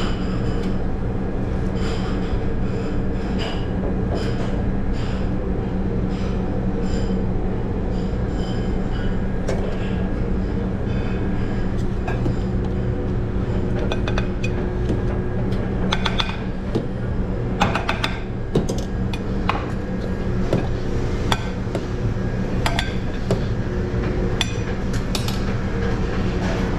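Working commercial kitchen: a steady loud machinery hum with scattered clinks and knocks of metal pans, utensils and glass, the clatter busier past the middle.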